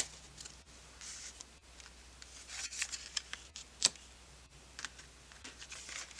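Tarot cards being handled on a table: soft sliding scrapes and a few sharp little taps and clicks, the sharpest just under four seconds in.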